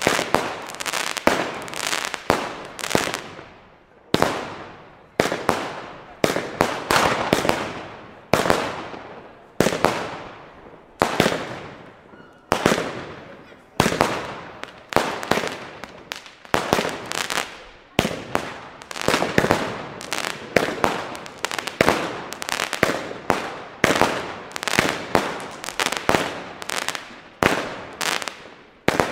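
Lesli 'Wütende Heidi' 100-shot fireworks battery firing in a steady sequence: sharp bangs about one to two a second, each trailing off in a fading tail, with a couple of brief lulls between shots.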